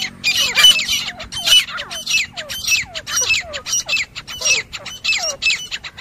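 Grey francolin (teetar) giving its repeated fighting call, the call used to lure the birds for hunting: a fast run of harsh, high squawks, about two a second, mixed with lower falling notes.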